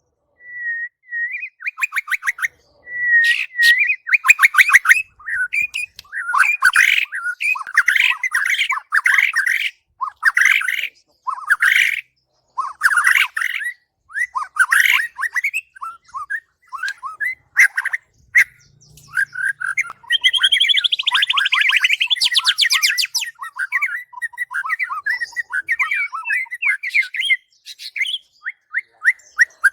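White-rumped shama singing a long, varied song: phrases of clear whistles and rapid chattering trills separated by short pauses, with a denser, harsher chattering stretch about twenty seconds in.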